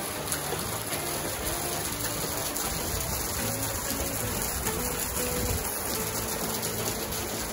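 Water spilling and splashing steadily from the buckets of a large water wheel into the stone channel below, with background music underneath.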